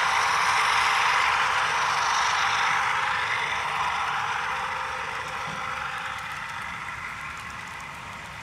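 HO scale model freight train running past: a steady hiss of its locomotive motors and metal wheels rolling on the track, growing steadily quieter from about two seconds in as the locomotives move off and the freight cars follow.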